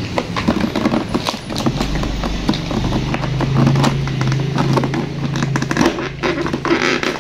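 Repeated clicks, knocks and rustling from hands handling a hard plastic toy ice cream cart. A steady low hum runs from about two seconds in to about six seconds in.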